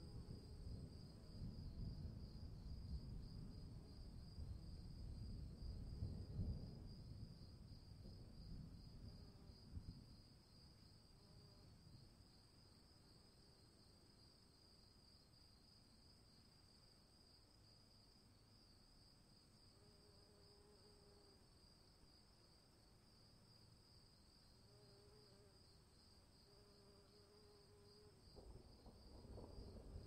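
Faint crickets chirring steadily, under a low rumble of distant thunder that rolls through the first several seconds, dies away by about ten seconds in, and comes back near the end.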